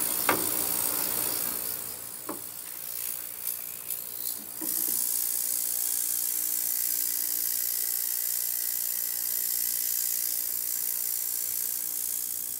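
Ultrasonic cleaner running with a steady high hiss and a faint hum. The metal parts basket knocks a few times in the first seconds, and about five seconds in the hiss steps up louder and holds steady.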